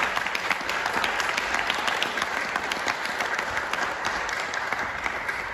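Audience applauding: steady, dense clapping that eases off slightly near the end.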